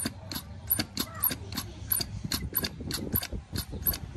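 Quick, light clicks at about three a second, uneven in spacing, from hands working the parts of a motorcycle carburetor being put back together.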